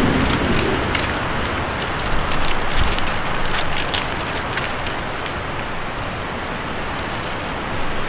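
Steady rushing hiss with a scatter of short sharp crackles in the middle.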